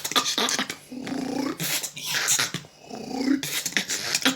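Beatboxing: sharp mouth-made clicks and snare hits mixed with throaty, growl-like bass sounds.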